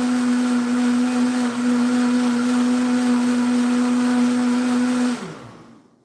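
Countertop blender motor running steadily at high speed, blending watermelon rind for a green smoothie. About five seconds in it is switched off, and its pitch drops as the motor winds down.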